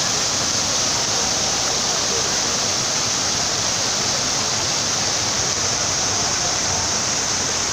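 Multi-jet fountain spraying water that falls into its basin: a steady, even rush of splashing water.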